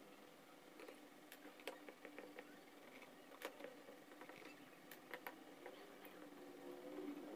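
Faint, irregular clicks and taps of a hand screwdriver working the screws out of a Makita heat gun's plastic housing.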